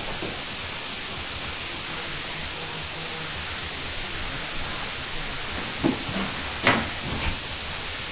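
Steady hiss of a low-quality recording, broken by a few sharp thumps of feet landing on a wooden floor during the dance, a little past halfway through.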